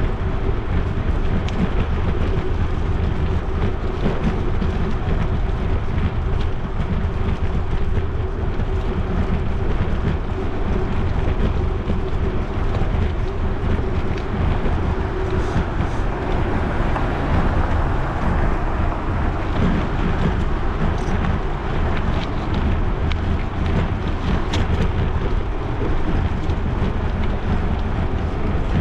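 Steady wind rush buffeting the microphone of a bicycle-mounted action camera while riding, heaviest in the low end, with a few faint ticks in the second half.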